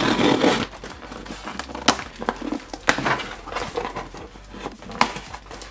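Scissors slitting the packing tape on a cardboard shipping box, then the cardboard flaps being pulled open and torn. There is rasping at the start and a few sharp snaps of tape and cardboard later on.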